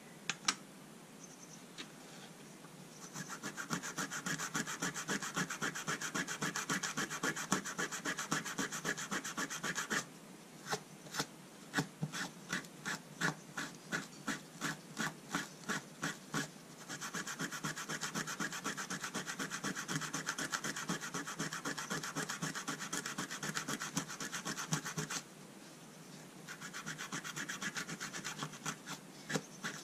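Fast back-and-forth rubbing on the brass end tip of an old boxwood-and-brass folding rule, cleaning it by hand. A single sharp click comes just after the start. The rubbing then runs continuously, slows for several seconds into separate strokes about two a second, picks up again, and pauses briefly near the end.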